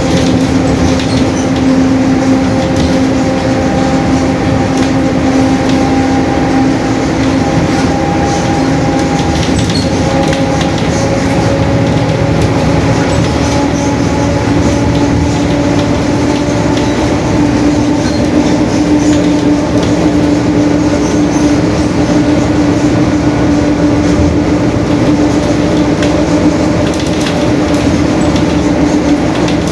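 Mercedes-Benz OF-1721 Bluetec 5 city bus under way, heard from inside: steady engine and road noise with a droning gear whine from the differential, its pitch slowly rising.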